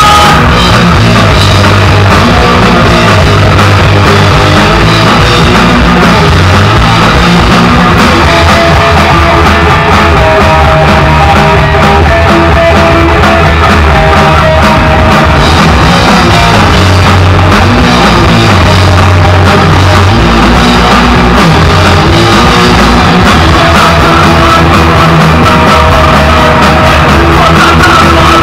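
Hardcore punk band playing live: electric guitars and a drum kit, loud and continuous.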